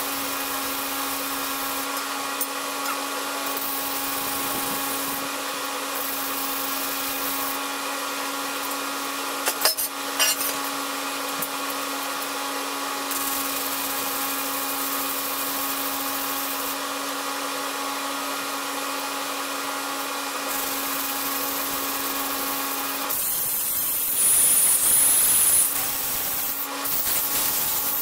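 A steady motor hum runs throughout, with a few sharp metallic clicks about ten seconds in. Near the end a louder power-tool whir with a high whine lasts about two seconds.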